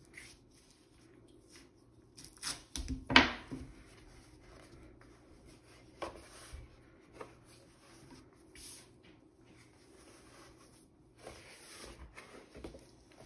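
Hands handling a white drawing board edged with yellow masking tape: light rubbing and shuffling as the tape is pressed down and the board is moved, with a sharp knock about three seconds in and a few smaller knocks after.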